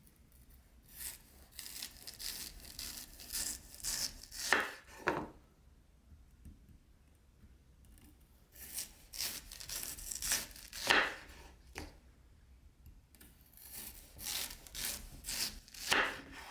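A kitchen knife sawing through a thick root vegetable on a wooden cutting board, three times over. Each cut is a run of rasping strokes that ends in a couple of louder strokes as the blade goes through.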